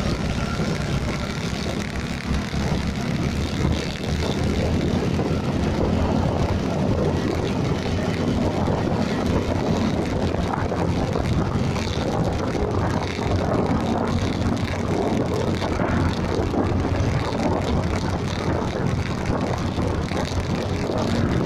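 Steady rush of road and wind noise from riding along a city street, with a low, even engine drone underneath.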